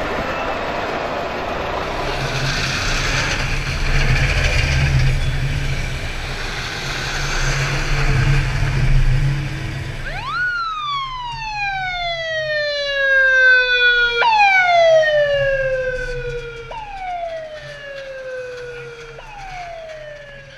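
Trabant two-stroke engines running as the cars pull away. About halfway through the engine noise cuts off and an added sound effect takes over: a tone that shoots up and then slides slowly down, repeated three more times, each start lower and fainter.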